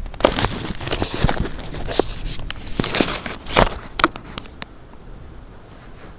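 Irregular crackling from lightning: sharp clicks and short hissing bursts come thick for about four seconds, then thin to a few faint ticks.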